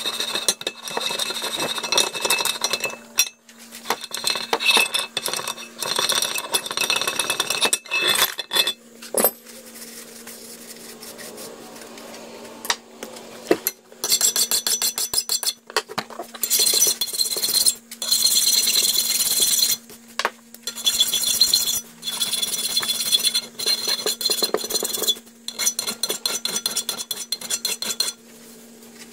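Steel parts of a bench vise worked by hand: the screw and handle turning in the body and the movable jaw's slide bar sliding in the body, in stretches of rasping, clinking metal on metal with short pauses. A steady low hum runs underneath.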